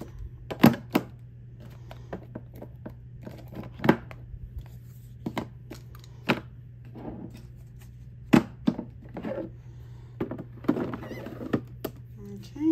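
Makeup palettes and palette boxes being handled and set into clear acrylic drawers: irregular sharp taps, clicks and knocks of the compacts against each other and the plastic, with a faint steady low hum underneath.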